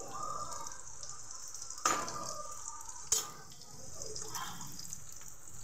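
Samosas deep-frying in hot oil: a steady sizzle and bubbling, with two sharp clicks about two and three seconds in.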